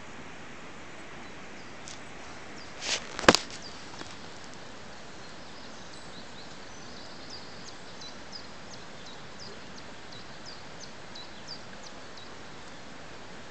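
Steady outdoor hiss. About three seconds in, a brief rustle and a sharp knock, the loudest sound. From about six seconds in, a bird gives many quick, high, falling chirps in a row.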